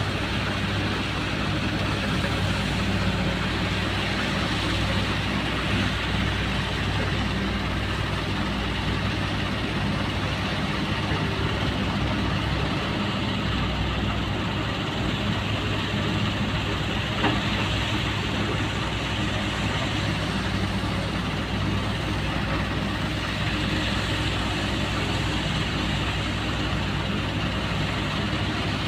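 Hyundai excavator's diesel engine running steadily under work, with one brief sharp click about 17 seconds in.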